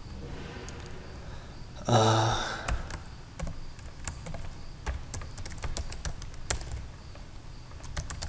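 Typing on a computer keyboard: scattered, irregular key clicks as text is entered. About two seconds in comes a brief hum from a man's voice, the loudest sound.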